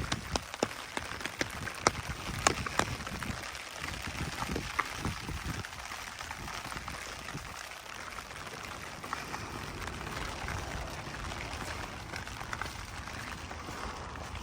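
Steady rain falling, with scattered sharp taps of drops in the first few seconds.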